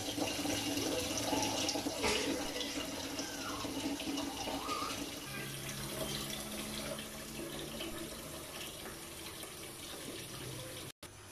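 Water running into a saucepan of cubed aloe vera gel, filling it with a steady splashing rush that gradually gets quieter.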